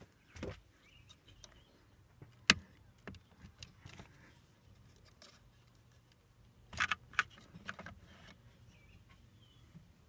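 Plastic clicks and knocks from fingers pressing on the retaining tabs of a GMC Acadia's steering-column multifunction switch. There is one sharp click about two and a half seconds in, a few lighter ticks after it, and a short run of clicks near seven seconds.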